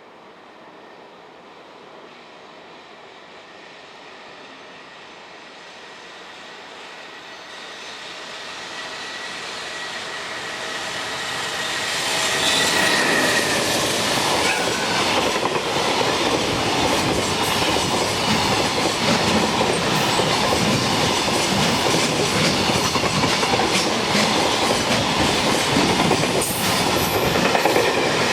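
Electric freight train approaching, growing steadily louder over about twelve seconds, then passing close by with continuous wheel clatter and rail noise.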